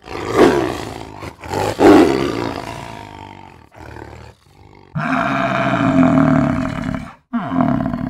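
Tiger roaring: two loud roars about a second and a half apart, each fading away, then a longer, steadier call from about five seconds in that cuts off suddenly.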